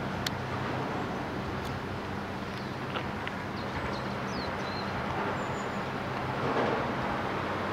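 Steady low engine hum under outdoor wind noise, with a few faint high chirps scattered through it.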